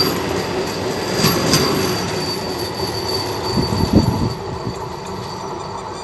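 Vande Bharat Express electric multiple-unit train passing at speed: dense running noise with wheels clacking over rail joints and a thin, steady high whine. A heavy thump comes just before four seconds, the loudest moment, after which the noise drops off as the train pulls away.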